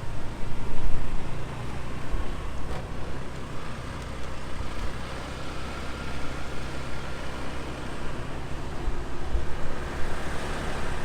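Motorcycle engine running while riding in traffic, with steady road and wind noise.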